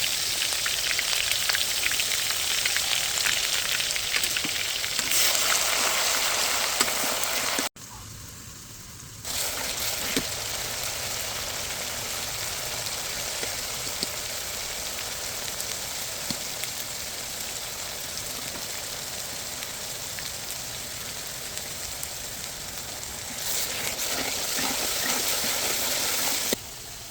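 Turkey meat sizzling as it fries in oil in a pan, a steady hiss that drops away briefly about eight seconds in and again near the end.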